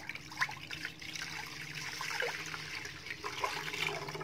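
Thick homemade almond milk being poured in a continuous stream into a wok, a steady liquid pouring and splashing sound.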